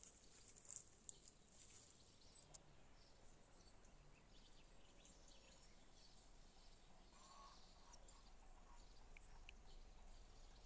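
Near silence: faint outdoor background with a few soft clicks in the first second or so.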